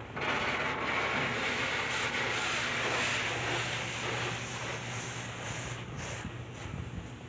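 Water spray from a Southern Pride Turbo in-bay automatic car wash hitting the car, heard from inside the cabin. The spray starts suddenly just after the beginning, is loudest for the first few seconds and eases off near the end. A steady low hum runs underneath.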